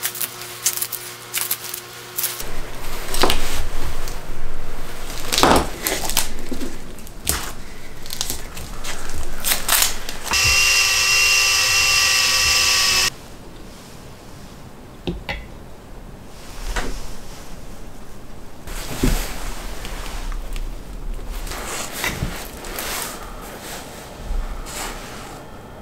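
Makita 18V cordless drill-driver running at a steady pitch for about two and a half seconds near the middle, driving a hose band's screw tight around a plastic-wrapped angle grinder. Before and after it, scattered handling knocks and clicks of tools on a bench.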